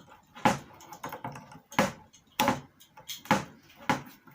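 About five sharp, irregularly spaced clicks and knocks of small metal parts and a hand tool being handled while a wire is fastened under a terminal screw.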